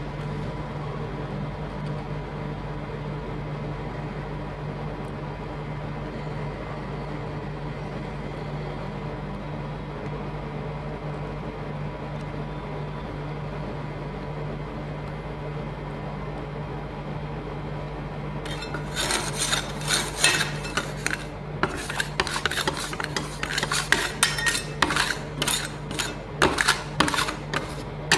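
Steady machine hum, then, about two-thirds of the way in, metal spatulas start scraping and tapping in quick irregular strokes on a frozen steel plate as rolled ice cream is chopped and spread.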